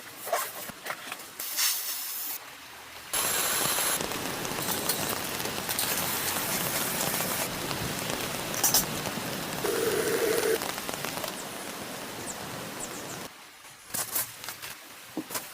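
A steady hissing noise that starts suddenly about three seconds in and cuts off suddenly near the end, set between light clicks and knocks of handling.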